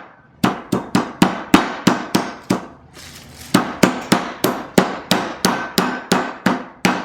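Meat mallet pounding a plastic-wrapped chicken breast flat: a run of sharp, even strikes about three a second, a pause of about a second, then a longer run of strikes.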